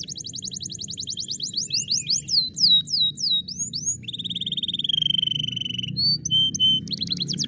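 Domestic canary song: a fast trill of rapid, steeply falling notes that slows into separate falling whistles, then a long steady whistle about four seconds in, followed by a few short chips and the fast trill starting again near the end. A faint low hum lies underneath.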